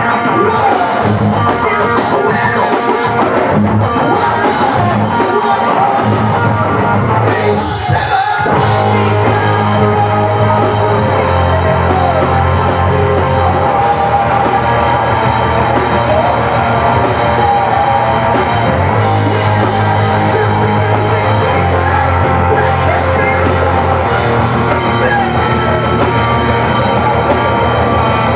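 Live rock band playing loud: electric guitars and drum kit, with a singer's voice over them. The instruments drop out for a moment about eight seconds in.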